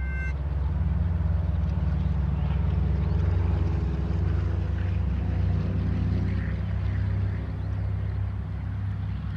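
Deep, steady rumble of a diesel locomotive engine, played backwards. A railroad crossing's electronic bell, pulsing about two and a half times a second, cuts off just after the start.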